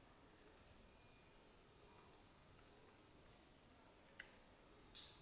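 Faint computer keyboard typing: scattered keystrokes in short runs, with one louder key press near the end.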